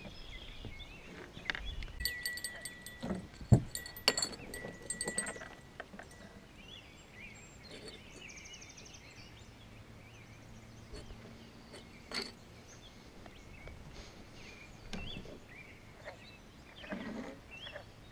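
Quiet pond-side ambience with faint bird chirps. In the first few seconds a run of clicks and knocks sounds as fishing gear (pliers and tackle) is handled on the plastic dock, with one sharp knock about three and a half seconds in. Single knocks follow later.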